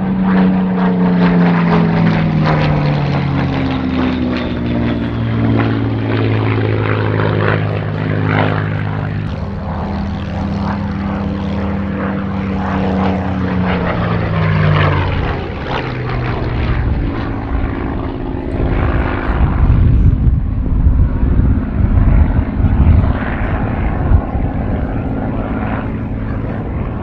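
Supermarine Spitfire's Merlin V12 piston engine droning as it flies a display pass. Its pitch drops as it passes near the start and again about fifteen seconds in, and the sound turns rougher and louder in the second half.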